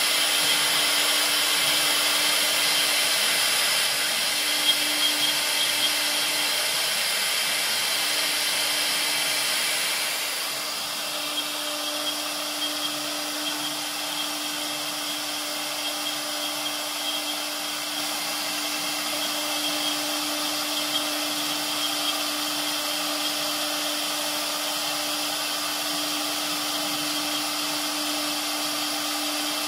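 CNC wood router spindle running with a steady hum while its bit cuts into a wooden board, over a hiss of cutting. About ten seconds in the hiss drops and the machine gets somewhat quieter, with a few small clicks.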